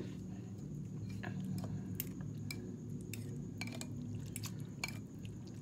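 Two metal spoons mixing soupy instant noodles and sauce in a ceramic bowl: scattered light clinks of metal on the bowl with wet squishing of noodles.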